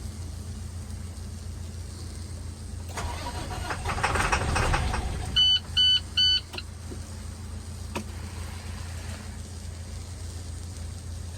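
A work truck's engine drones low and steady. About three seconds in, a rapidly pulsing burst of engine noise swells for about two seconds. It is followed by three short, loud beeps and a single click a little later.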